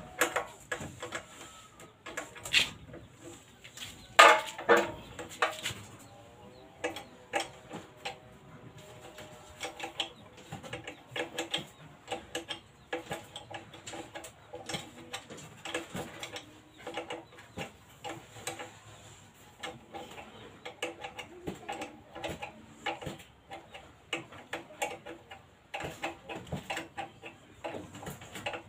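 Hand tool and metal parts clicking and tapping as a wrench works at the carburetor mounting of a small single-cylinder gasoline engine, a run of irregular short clicks with a louder clatter about four seconds in.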